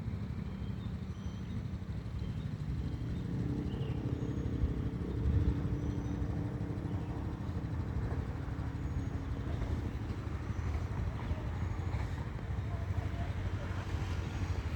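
Old motorcycle's engine running steadily as it rides along slowly, an even low rumble.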